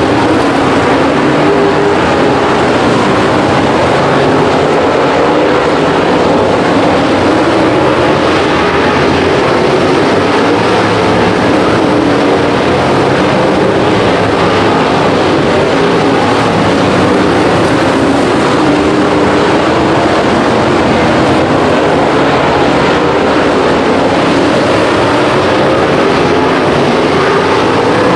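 Race car engines running hard during a dirt-track feature race: a loud, unbroken din whose pitch wavers up and down as the throttle is worked through the turns.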